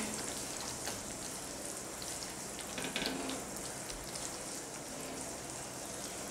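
Masala gravy with besan gattas frying in a metal kadai, stirred with a steel spoon. There is a few faint scrapes of the spoon against the pan about three seconds in.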